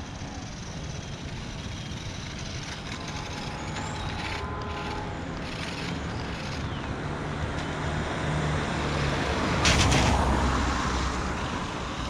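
Outdoor street noise with distant motor-vehicle sound, swelling into a louder rushing noise about ten seconds in.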